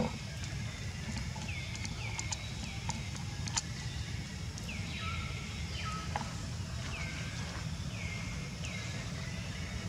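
Infant macaque crying: a string of short high calls, each dropping in pitch and then levelling off, about one a second. Beneath them runs a steady low rumble, and a few sharp clicks fall in the first half.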